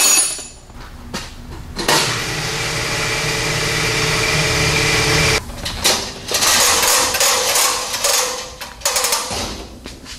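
Pneumatic wrench spinning a bolt out in two runs of about three and a half seconds each, the second choppier, followed by a few short trigger pulls near the end.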